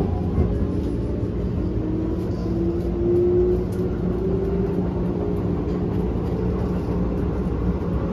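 Electric commuter train running, heard from inside the carriage: a steady rumble with a faint motor whine that rises slightly in pitch a few seconds in.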